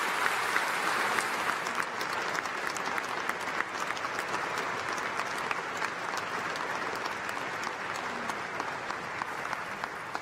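Large seated audience applauding, a dense sustained clatter of many hands clapping that slowly eases off in loudness toward the end.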